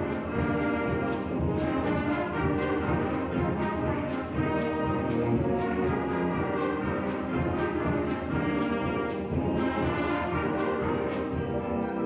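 Symphonic wind band of woodwinds, brass and percussion playing a full-ensemble passage with the brass prominent. High percussion taps keep a steady beat throughout.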